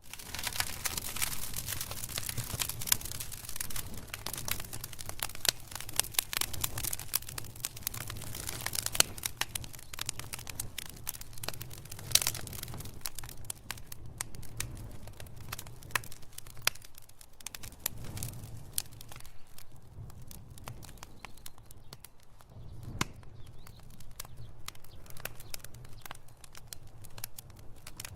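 Wood fire crackling: a dense run of small snaps and pops over a steady low rumble, thickest in the first half and thinning later, with a few sharper pops standing out.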